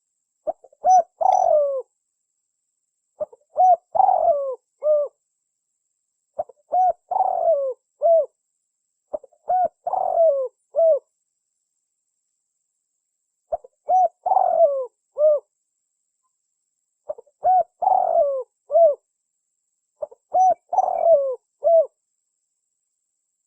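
Spotted dove (tekukur) cooing: a phrase of several short coos, repeated seven times about every three seconds, with dead silence between phrases. It is a recorded lure call used to draw doves in.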